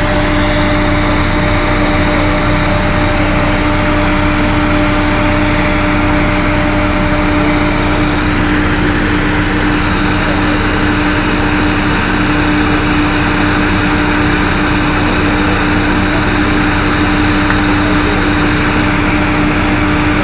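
Drilling rig machinery running: a loud, steady engine drone with a fixed hum that does not change.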